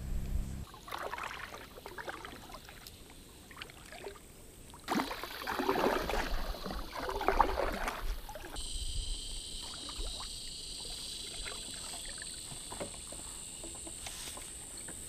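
Kayak paddle strokes dipping and splashing in calm river water, heaviest about halfway through. Then a steady high-pitched insect drone sets in and holds.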